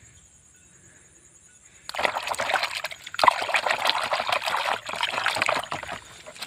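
Water splashing and sloshing in a plastic basin as a hand swishes and scrubs plastic toy animals, starting about two seconds in, with a short lull near the end.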